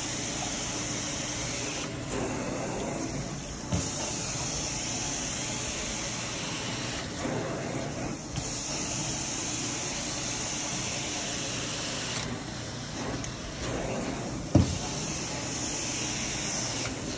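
Carpet extraction wand working over carpet: steady suction with a high spray hiss that cuts in and out every few seconds with the strokes. Two dull thumps, one about four seconds in and a louder one near the end.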